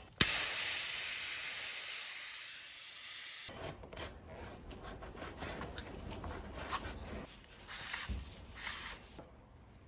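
Air hissing out of a tubeless mountain-bike tyre as it deflates: loud and fading slowly for about three seconds, then stopping abruptly. After that, faint rubbing and scuffing of the tyre being handled.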